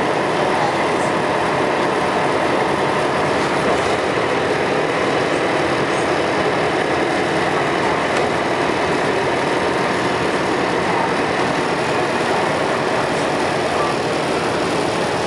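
Scania L113CRL bus's 11-litre six-cylinder diesel engine running steadily at an even pitch and level.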